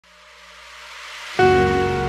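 Intro jingle: a rising whoosh swells for about a second and a half, then a sustained chord comes in suddenly and rings on.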